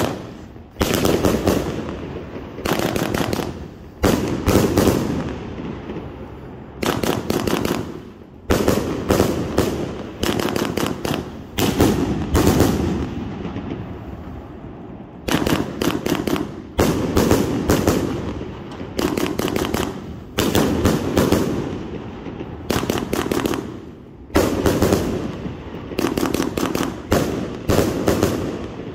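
A 100-shot Midnight Caller consumer firework cake firing: volleys of sharp reports, several in quick succession, each volley trailing off before the next comes a second or two later.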